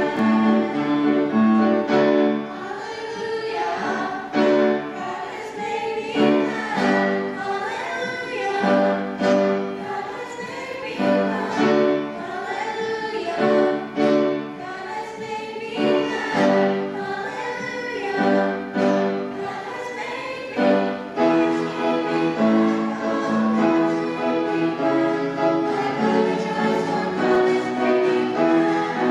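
Choir singing with instrumental accompaniment, in sustained phrases of a couple of seconds each.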